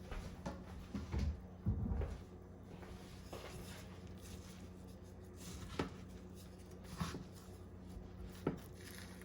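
Scattered kitchen knocks and clacks, a cupboard door and dishes being handled, a few in quick succession in the first two seconds and then single ones spaced out, over a steady low hum.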